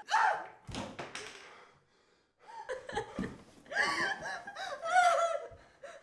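A violent struggle between two people: two sharp impacts about a second in, then strained gasps and cries as they grapple.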